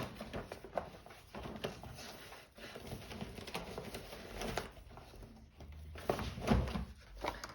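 Sheets of white card stock being handled and shuffled: irregular light rustling and tapping, with a louder bump about six and a half seconds in.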